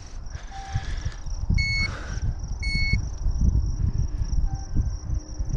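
Two short electronic beeps about a second apart from a digital fish scale as it weighs a bass, over low rumbling noise from wind and handling.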